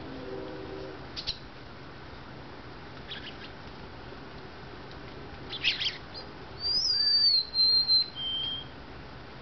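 Golden-crowned sparrow song: a few short sharp notes, then about two-thirds of the way through a loud whistled phrase of clear notes stepping down in pitch, the last note lower and shorter.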